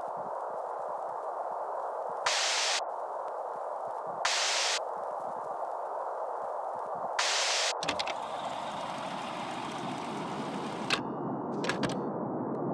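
Scissors cutting the packing tape along a cardboard shipping box seam in three short rasping strokes, each about half a second and about two seconds apart. Then the cardboard flaps are pried open with rustling and a few sharp clicks, over a steady hiss.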